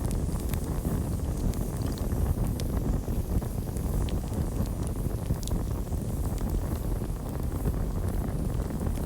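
Campfire burning: a steady low rumble of flames with scattered sharp crackles and pops.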